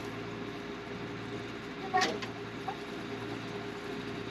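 Steady drone of an engine running, with a constant hum, and one brief high-pitched sound about two seconds in.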